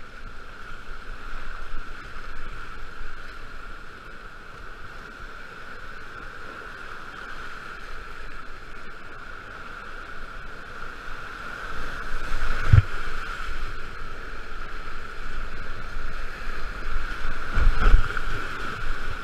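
Whitewater rushing steadily around a kayak running a rapid. Two low thumps break through, one about two-thirds of the way in and a heavier one near the end as spray hits the camera.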